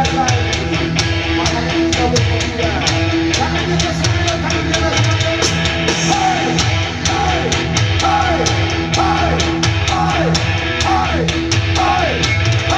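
Rock music with distorted electric guitar, drums and singing, at a steady loud level, stopping abruptly at the end.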